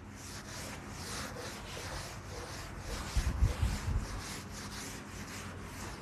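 Cloth wiping chalk off a chalkboard in quick repeated rubbing strokes, a few a second, with some dull low bumps against the board about halfway through.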